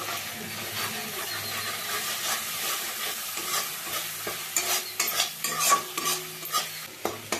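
Mustard-based spice paste sizzling in oil in a metal kadai while a flat metal spatula stirs it, scraping the pan; from about halfway through the scrapes come sharper and several times a second. The masala has been sautéed nearly done, with red chilli powder just added.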